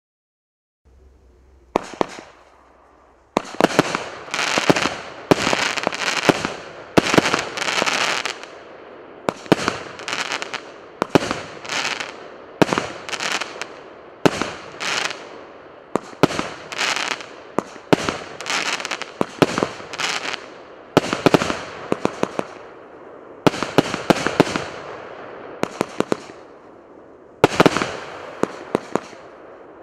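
Multi-shot firework battery, the 'Avatar' cake, firing shot after shot. A faint start and one crack come first, then from about three seconds in a steady run of sharp cracks in quick clusters, with crackling between them.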